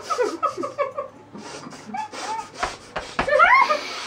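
Stifled, muffled laughter and breathy exhales through the nose from people with mouths stuffed full of marshmallows, with a short rising squeal about three seconds in.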